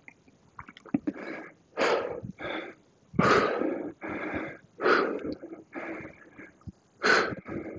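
A man breathing hard under exertion during a set of dumbbell Romanian deadlifts: a forceful exhale about every one and a half seconds, with weaker breaths between.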